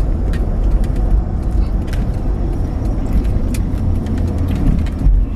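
Car engine idling, a steady low rumble heard from inside the cabin, with a few light clicks scattered through it.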